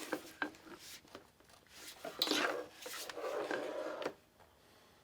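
Hands rummaging through the box and paperwork of an electric staple gun: a few light clicks, then two stretches of rubbing and scraping about two seconds in.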